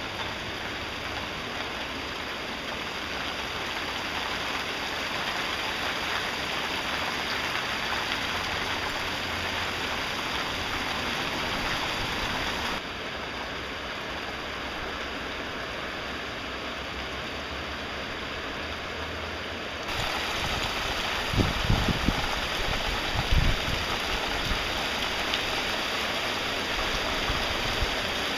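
Heavy rain falling steadily on trees and a street, a dense even hiss that eases for several seconds in the middle and then comes back louder. A few short low thumps sound a little past the middle.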